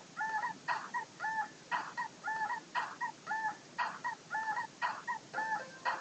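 A looped dog-bark sound effect repeating in a strict rhythm, about two barks a second, each alternating with a short hissing clap-like hit, as a novelty backing track.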